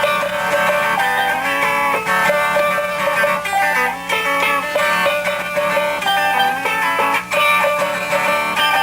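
Instrumental break in a sung theme song, led by strummed and picked guitar.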